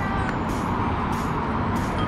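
Steady outdoor background noise with a low hum of road traffic.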